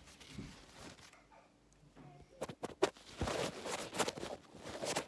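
Handling noise right at the microphone: rustling, clicks and scrapes as something soft is rubbed over the recording phone, starting about halfway in and getting busier toward the end.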